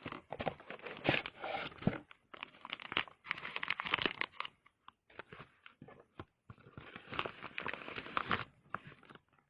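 Close handling noise: irregular crunching, crinkling and rustling, with a few short pauses around the middle.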